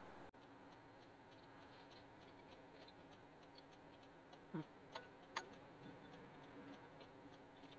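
Near silence: faint room tone with scattered soft ticks and clicks, a few slightly louder ones a little past halfway.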